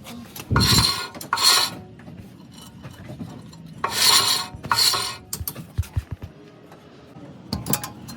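Four rasping scraping strokes in two pairs, about three seconds apart. A few light knocks and clicks follow near the end.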